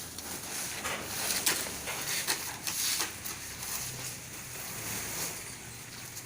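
Krupuk-separating machine running, with a steady rush and irregular clattering of crackers tumbling inside its drum; a low motor hum comes in about four seconds in.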